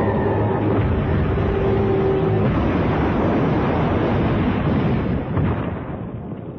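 Animated-show sound effects of a heavy crash and collapse: a dense, loud rumble of falling wreckage, with a held tone over it in the first two seconds or so. The rumble dies away near the end.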